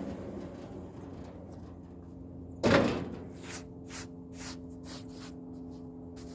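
A sharp knock about three seconds in, then a string of short scraping strokes about half a second apart, over the steady low hum of the sawmill's engine running at idle.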